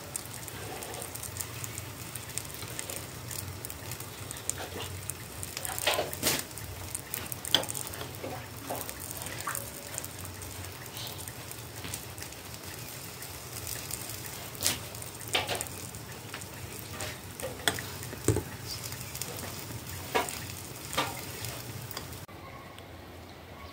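A pot of mushrooms boiling on a gas burner, a steady bubbling hiss, with occasional sharp clinks of a metal ladle against the enamel pot as it skims and stirs.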